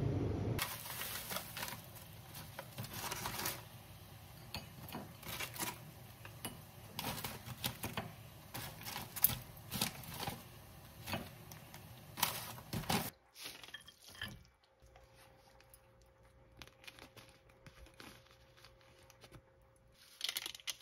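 Close handling sounds: rustling and crinkling with many light clicks and taps for about 13 seconds, then a quiet stretch with a faint steady hum and a few taps near the end.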